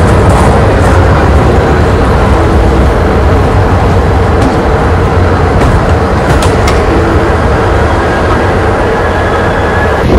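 Passenger train running as it pulls out of a station, heard from an open window: a loud, steady rumble with a few faint clicks in the middle.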